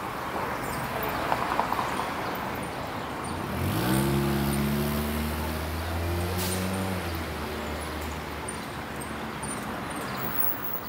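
Street traffic, with a motor vehicle's engine accelerating: its pitch rises sharply a little under four seconds in, holds steady for about three seconds, then fades back into the general traffic noise.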